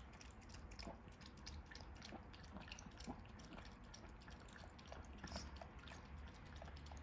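A smooth-coat Chihuahua chewing and smacking, faint irregular small wet clicks.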